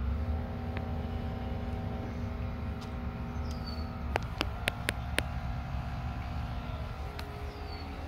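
Steady low outdoor rumble with a faint hum, like distant traffic or machinery. A short, high, falling chirp comes about every four seconds, and a handful of sharp clicks fall a little past halfway.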